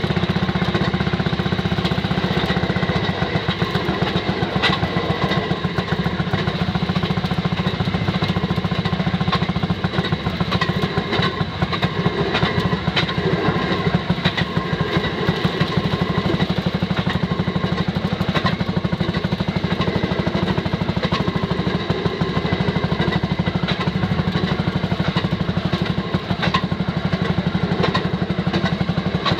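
Railroad speeder's small engine running steadily under way, a fast, even putt-putt, with occasional clicks from the wheels on the rails.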